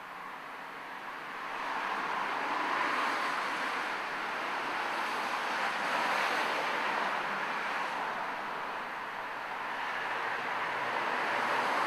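A steady rushing noise with no clear pitch that swells over the first couple of seconds, ebbs briefly later on and rises again near the end.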